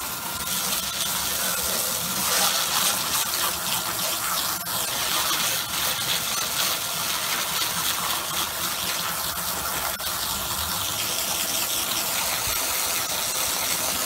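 Garden hose spraying a steady stream of water onto cedar roof shakes, a continuous splashing rush. This is the low-pressure rinse that follows the cleaning chemical.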